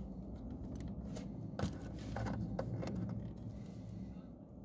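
Hands working the plastic headlight wiring connector behind a 2018 Honda Gold Wing's headlight assembly: rubbing and handling noise with a few light plastic clicks as the tab is pressed and the connector is pulled free, the loudest click about one and a half seconds in.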